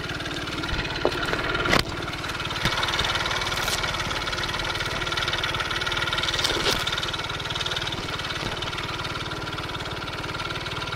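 Taotao Zummer 50cc four-stroke scooter engine running steadily, with a few sharp knocks, the loudest about two seconds in.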